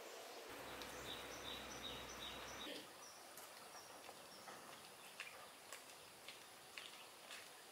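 Faint outdoor ambience with a bird chirping a short note over and over for the first few seconds. After that come only soft, scattered footsteps on a dirt path.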